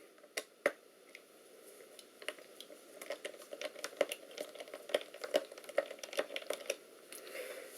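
Scattered light clicks and taps of a small screwdriver and fingers working on a laptop's plastic bottom cover, coming more thickly after about three seconds.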